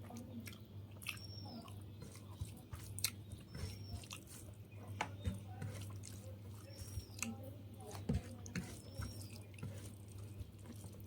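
Close-up wet chewing and lip smacking of a person eating soft rice and fish, with scattered small clicks. A steady low hum runs underneath, and a short high chirp recurs every couple of seconds.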